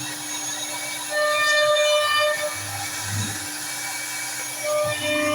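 CNC router machine running with a steady whine. A louder, higher whine comes in about a second in and again near the end, as the machine's motors drive it through its moves.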